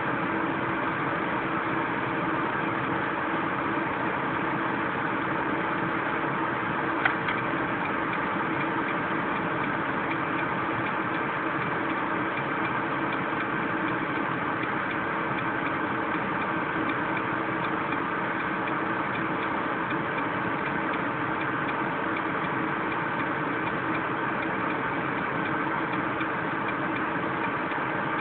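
Electric car's cabin heater fan running at its top setting (step four) along with the heater's pumps: a steady whirring hum with several steady tones. A single sharp click about seven seconds in.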